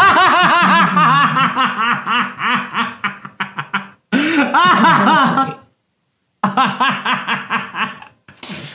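A man laughing hard in quick repeated bursts of loud laughter, breaking off briefly about two thirds of the way through, then laughing again.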